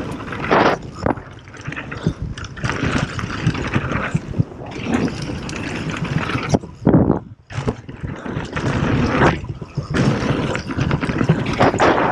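Mountain bike ridden fast down a dirt trail: knobby tyres rushing and skidding over packed dirt while the bike rattles over bumps, with wind buffeting the camera microphone. The noise surges and falls away briefly about seven seconds in.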